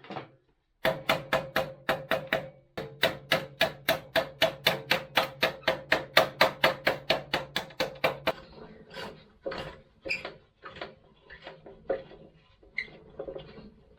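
Rapid, even hammer strikes on metal, about five a second with a ringing note under them, then slower, lighter taps for the last few seconds.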